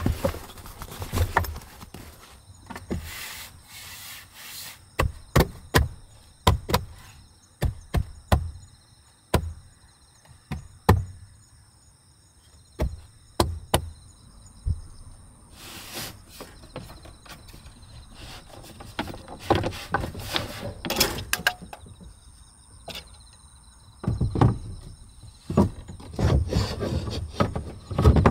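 Wooden boards of a DIY table and shelf being handled and set in place: a string of separate knocks and clacks with rubbing and fabric rustle, busiest near the start and again near the end. Faint steady insect chirping runs underneath.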